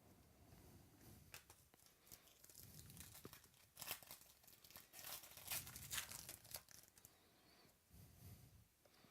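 Faint crinkling and tearing of a trading-card pack wrapper being handled and opened, in irregular rustles that are loudest in the middle and die away near the end.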